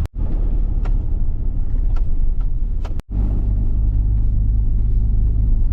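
Vehicle driving on a rough back road: a steady low engine and road rumble that cuts out abruptly for a moment at the start and again about three seconds in.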